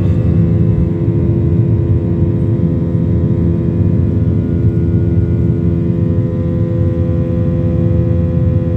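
Boeing 737-800's CFM56-7B turbofan engines at takeoff thrust just after lift-off, heard inside the cabin: a steady loud rumble with several steady tones above it.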